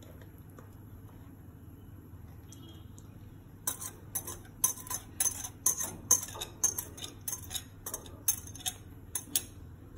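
A metal wire whisk scraping and knocking inside a glass bowl as the last of an egg-and-milk custard mixture is pushed out: a run of quick light clicks, about three a second, starting a few seconds in.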